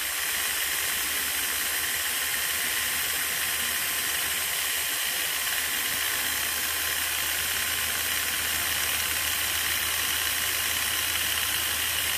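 Electric drill running at a steady speed, spinning the speedometer drive so the odometer's number drums turn over together, a test that the freshly zeroed counter drums are lined up and moving freely. It makes a steady whirring hiss with a low hum beneath.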